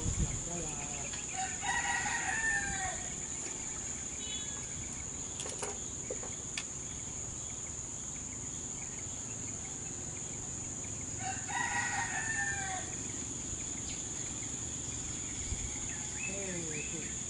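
A rooster crowing twice, about ten seconds apart, over a steady high-pitched insect drone.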